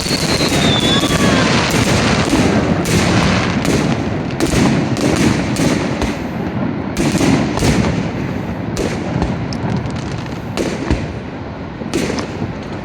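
Fireworks display: many bangs and crackles in quick succession over a continuous rumble, with a high falling whistle in the first second or so.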